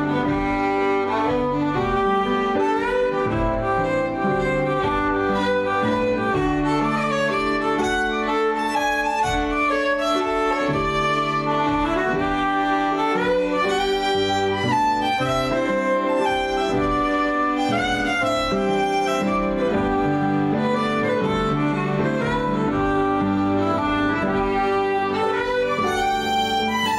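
Irish traditional tune played briskly on two fiddles with piano accompaniment; a concertina joins near the end.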